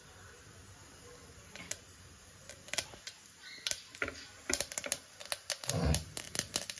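Mustard seeds popping in hot oil in a pressure cooker. Scattered sharp pops start about a second and a half in and come thicker and faster toward the end, with one low thump near the end.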